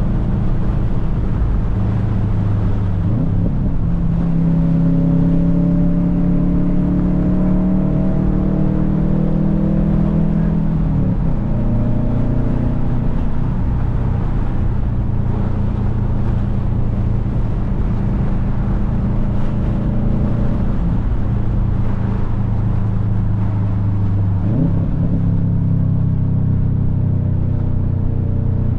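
Car engine and road noise heard from inside a moving car. A steady engine drone rises in pitch about four seconds in, drops about eleven seconds in, and climbs again near the end.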